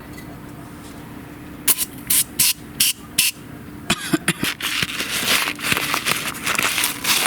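Cleaner spraying into the tractor's fuel filter housing to wash out sediment: several short squirts of hiss, then a longer spell of spraying from about four seconds in, over a steady low hum.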